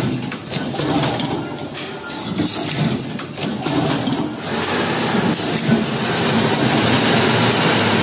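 Automatic wire crimping and heat-shrink-tube insertion machine running: a steady mechanical clatter with short air hisses from its pneumatic cylinders every few seconds. The noise grows louder about halfway through.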